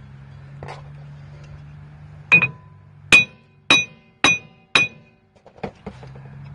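Five sharp hammer strikes on a steel rear axle shaft, each ringing briefly, about two a second. The axle with its new bearing is being driven home into the rear axle housing of a 1956 Chevy Bel Air.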